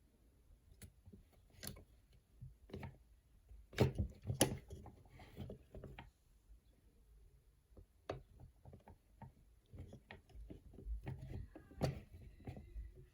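Hard plastic parts of a Transformers action figure being handled and shifted into place: irregular small clicks and knocks, with two louder knocks about four seconds in.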